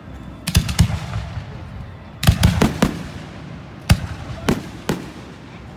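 Fireworks going off, a string of about ten sharp bangs at uneven spacing: a few near half a second in, a quick cluster about two to three seconds in, then single bangs near four and five seconds.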